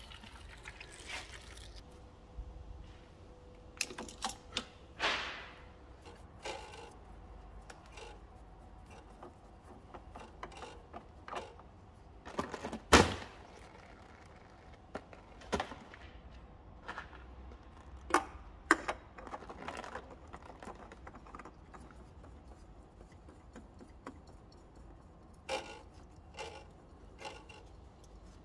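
Intermittent clinks, knocks and scrapes of hand tools and metal car parts being handled, with one loud sharp knock about halfway through.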